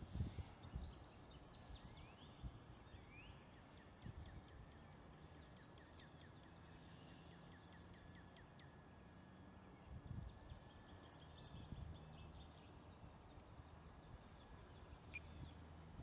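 Faint bird calls over a quiet outdoor background. There are two rapid trills of high chirps, one about a second in and another around ten seconds in, along with a few short rising calls.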